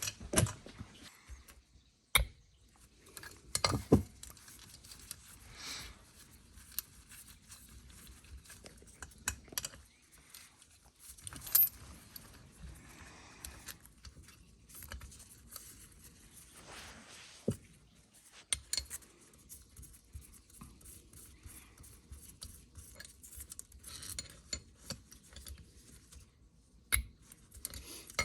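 Scattered metallic clicks, clinks and knocks of a steel socket and parts on a cylinder head as valve stem seals are pressed down onto the valve guides, one by one.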